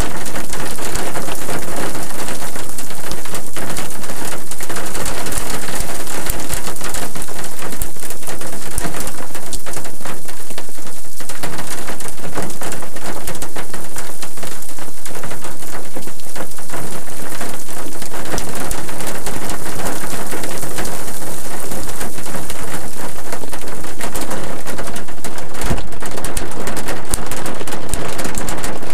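Rain pattering on a stopped car's windshield and roof, heard from inside the cabin: a loud, dense hiss full of individual drop hits.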